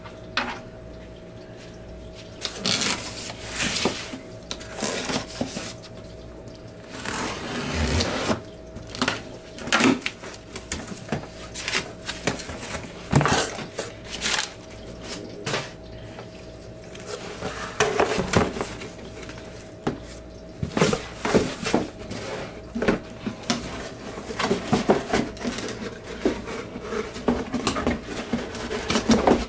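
A cardboard shipping box being opened by hand: a knife cutting and scraping along the taped seams, flaps pulled open, and crumpled kraft packing paper rustling as it is pushed aside. The sounds are irregular scrapes, crinkles and knocks of cardboard being handled, over a faint steady hum.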